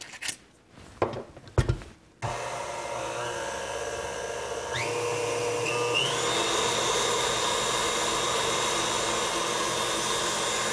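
A few light knocks, then an electric mixer switches on about two seconds in and runs steadily, beating frosting, its motor pitch stepping up twice as the speed is raised.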